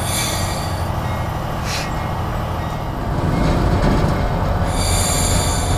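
Budd RDC rail diesel car heard from its cab, its original diesel engines running as the car moves along the track, with brief high-pitched wheel squeals from the rails. The engine sound grows louder about three seconds in.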